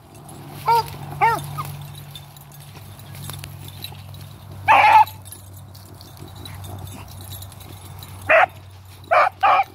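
Beagle pups barking on a scent trail while running a race, about six short, sharp barks at uneven intervals. Two come about a second in, the loudest and longest comes in the middle, and three come close together near the end.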